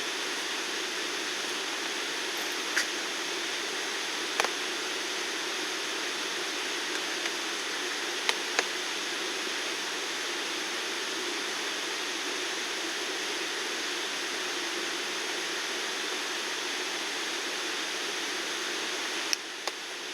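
Steady rain falling, an even hiss with no letup, broken by a few sharp clicks and taps.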